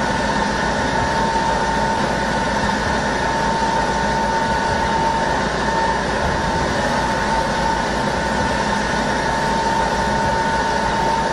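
Steady machine noise, an even drone with a constant high whine running through it.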